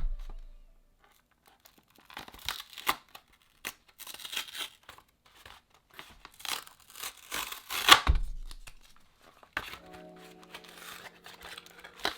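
Packaging being crinkled and torn open in a run of uneven, sharp crackles and rustles, loudest just before eight seconds in. Background music stops early on and comes back about ten seconds in.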